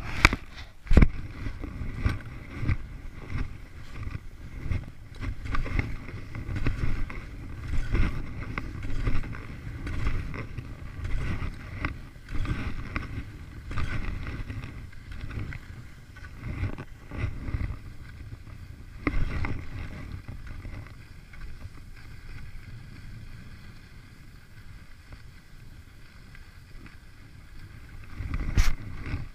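Skis sliding and scraping over groomed snow, with wind rushing over the camera microphone, rising and falling in irregular surges and a sharp loud burst near the end.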